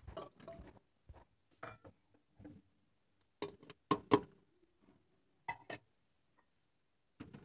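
Irregular knocks and clinks on a stainless-steel pressure cooker as raw meat pieces and spices are tipped into it and utensils touch the rim, some strikes leaving a brief metallic ring. The loudest clink comes about four seconds in.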